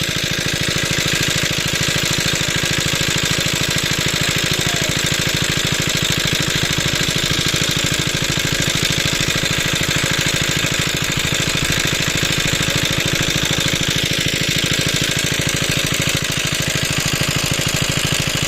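A small engine running steadily with a rapid, even knocking beat.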